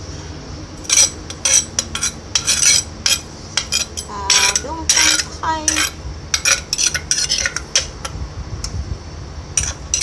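Spoon scraping around the inside of a clay mortar to mix and gather the salad, a run of short rasping strokes with a brief squeak in the middle.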